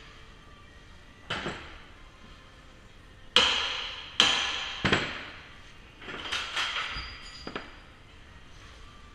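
Steel hooligan bar struck and levered against a steel door's edge at the lock, trying to force the bolt out of its receiver: a series of sharp metallic clanks, each ringing briefly, the loudest two about three and a half and four seconds in.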